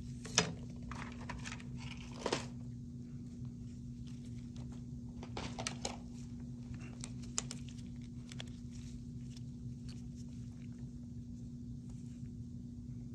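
Scattered clicks and knocks of small dental tools being set down and picked up on a tabletop, the sharpest about half a second in, over a steady low hum.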